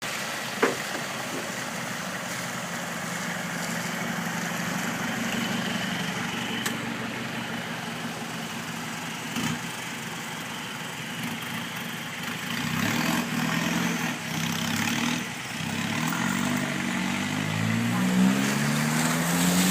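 A vehicle engine running steadily, then its pitch rising in a series of short climbs, over and over, from about two-thirds of the way in, as the engine revs up.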